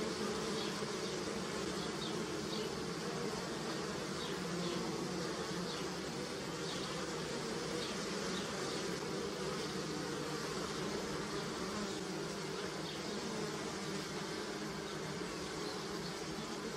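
Honeybees buzzing: a steady, continuous hum of many bees.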